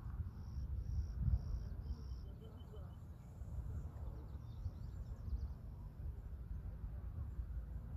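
Outdoor ambience of a steady, uneven low rumble with faint bird calls on top: four short, evenly spaced high notes in the first two seconds, then a quick cluster of chirps about halfway through.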